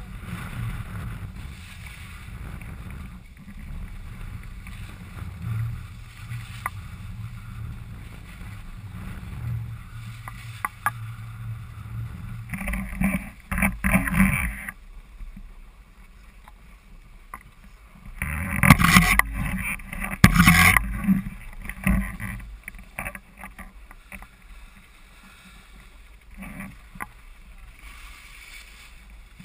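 Wind buffeting the microphone of a camera carried by a downhill skier, with the hiss and scrape of skis on packed snow. Louder scraping rushes come in about halfway through and again a few seconds later, then it settles to a quieter hiss.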